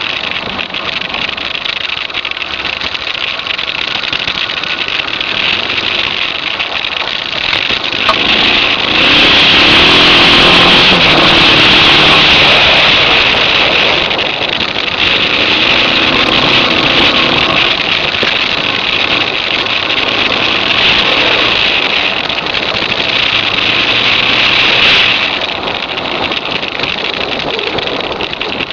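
Suzuki DR650's big single-cylinder engine pulling the bike along a dirt road, under a loud rush of wind and road noise. It gets much louder about eight seconds in as the bike speeds up, stays loud, then drops back near the end.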